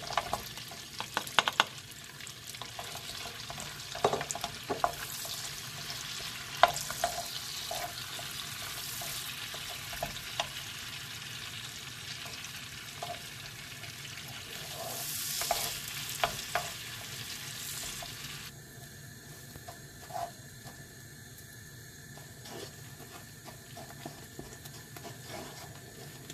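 Chopped Mars bar pieces tumbling into melted butter in a frying pan, then a wooden spoon stirring and scraping them round the pan over a steady low sizzle as the chocolate melts. The spoon knocks on the pan now and then.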